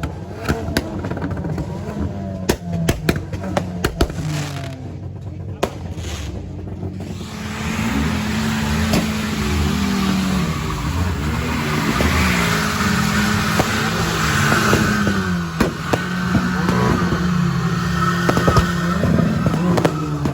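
Car engines running and revving, their pitch rising and falling, with sharp cracks scattered throughout. A louder, noisy rush builds from about seven seconds in.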